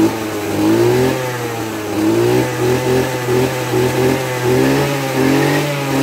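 Maruyama JCN26DT brush cutter's 26 cc two-stroke engine running with the throttle blipped up and down about once a second, the pitch rising and falling with each blip.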